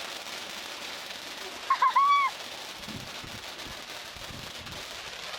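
A short, high held vocal 'ooh' about two seconds in, over a steady hiss.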